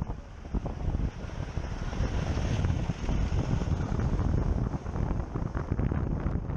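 Wind rushing over the microphone and road noise while riding a Zero SR/F electric motorcycle, with no engine sound, and traffic close alongside. The noise dips briefly in the first second, then holds steady.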